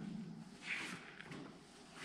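Low, droning calls from birds roosting inside the sandstone cave fade out in the first half second. About two-thirds of a second in comes a brief scuffing rustle.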